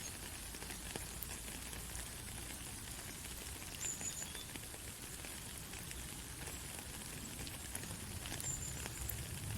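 Steady rain falling, an even hiss with scattered small drip ticks. Two brief high-pitched tones come through, about four seconds in and again near the end.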